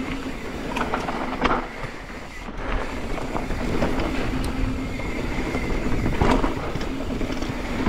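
Mountain bike rolling over a dry, loose, sandy dirt trail: steady tyre and rolling rumble with the bike rattling and a few sharp knocks over bumps.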